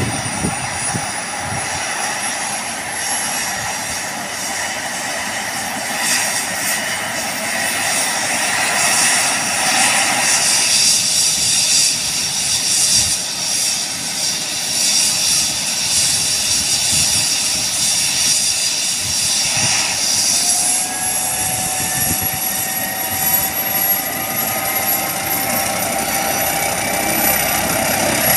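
MD Explorer police helicopter's twin turbine engines running on the ground with the main rotor turning at idle: a steady turbine whine over a continuous rush. About twenty seconds in, a further whine comes in and slowly rises in pitch.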